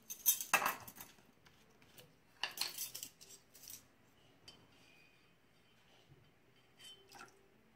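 Metal measuring spoons clinking and jangling in two short bouts, one in the first second and another between about two and a half and four seconds in, then only a few faint small clicks.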